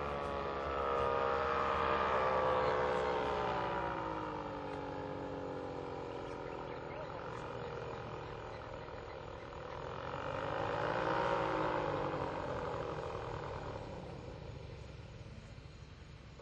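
Paramotor engine and propeller droning overhead. Its pitch slides down over several seconds, swells again with a rise and fall about eleven seconds in, then fades near the end.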